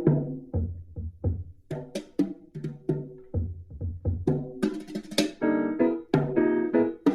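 Instrumental music: short struck notes over a low bass line, with a steady percussive rhythm.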